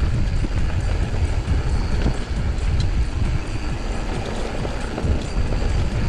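Mountain bike riding down a dry dirt trail: tyres rolling and the bike rattling and knocking over bumps, under a heavy, uneven rumble of wind on the action camera's microphone.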